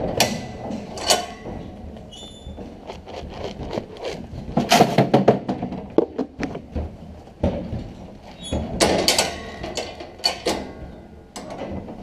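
Metal horse-stall gate and its latch being handled, rattling and clanking, with a string of knocks and bangs that come thickest in two clusters, and a brief high squeak about two seconds in.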